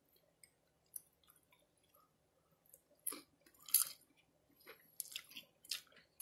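Close-up mouth sounds of a person chewing a mini chicken-and-cheese taco bite: faint at first, then louder wet smacks and clicks from about halfway through as she sucks her fingers.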